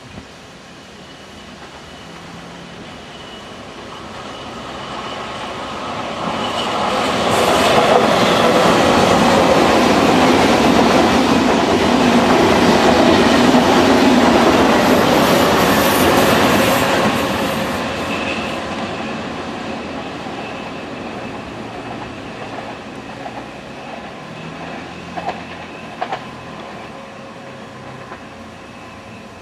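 SNCF TGV high-speed train passing without stopping. The noise of wheels on rail builds as it approaches, is loudest for about ten seconds while the carriages go by, then fades as it pulls away. There are a few sharp clicks near the end.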